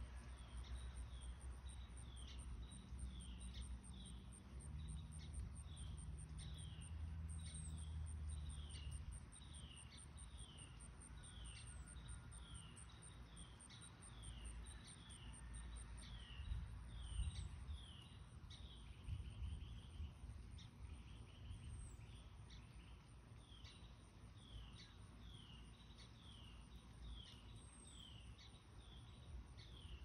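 Outdoor evening ambience under an approaching thunderstorm: insects trilling steadily and high, a short falling chirp repeated about once a second, and a low rumble of wind or distant thunder.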